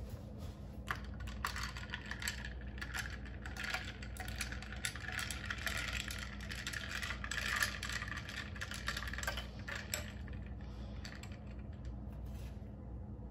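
Ice cubes clinking and rattling against a drinking glass and a stainless steel straw as an iced latte is stirred: a quick, uneven run of small clicks that stops after about ten seconds.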